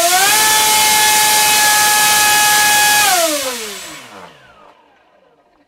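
Tarot TL3723 1700kv brushless motor spinning a 6.5x6.5 APC pylon racer propeller under load on a 5-cell battery: a loud whine with the rush of the prop, finishing its run-up in the first half second and holding a steady high speed for about three seconds. Then the power is cut and the whine falls in pitch as the prop winds down, fading out by about four and a half seconds.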